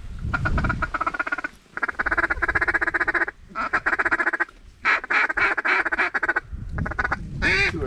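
Fast duck quacking chatter in several runs of a second or more each, with short breaks between them.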